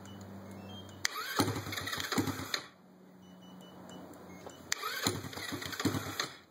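Straight-piped 180cc GY6 single-cylinder four-stroke scooter engine idling, blipped twice with the throttle. Each rev rises sharply, lasts about a second and a half, and drops back to idle.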